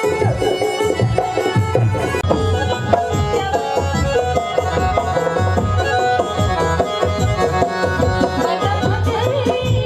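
Live folk band playing an instrumental passage: a dholak hand drum beating a steady dance rhythm under a keyboard melody, without singing.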